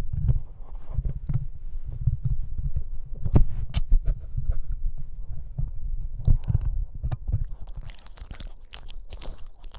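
Boston Terrier puppy chewing and gnawing on a corded microphone, heard right on the mic as a stream of irregular low thumps, bumps and clicks of teeth and jaws on it. Near the end it turns more to scratchy rubbing against the mic.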